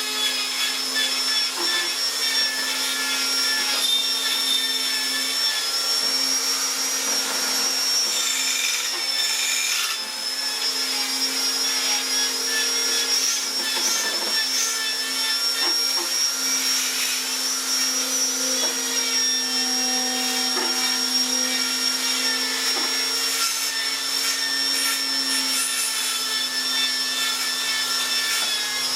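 Electric power tool running steadily with a high whine, its pitch wavering only slightly.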